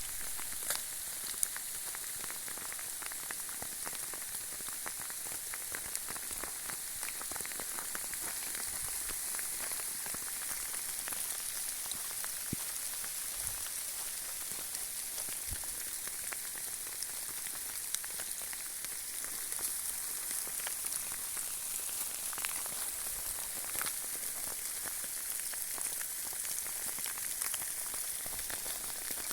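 Hail falling steadily on hard surfaces: a dense hiss full of many sharp individual strikes.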